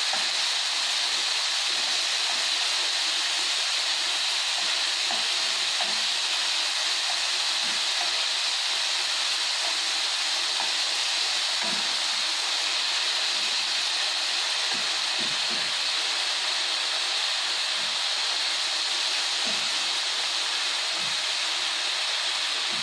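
Sliced pork frying in hot fat in a pan over low heat: a steady, even sizzle.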